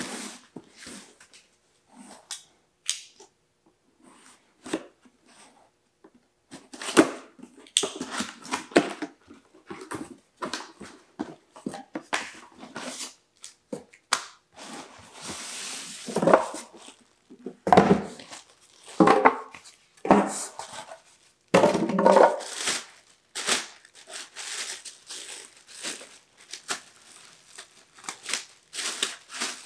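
Cardboard box and packing being handled and unpacked: irregular rustling, scraping and crinkling of cardboard, paper and plastic, with a few heavier knocks in the middle, and a plastic bag crinkling near the end.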